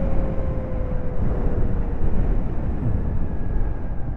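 Wind rushing over the microphone of a moving 2022 Zero SR electric motorcycle, with a faint motor whine slowly falling in pitch as the bike slows under braking with full regenerative braking on.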